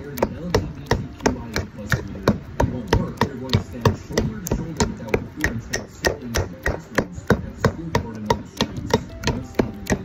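Knife chopping on a cutting board in quick, even strokes, about three to four a second.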